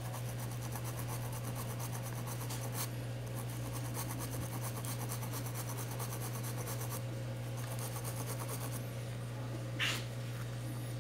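A small brush scrubbing the connector area of a phone display panel with isopropyl alcohol: a fast, steady, scratchy rubbing over a constant low hum. A single sharp knock comes near the end.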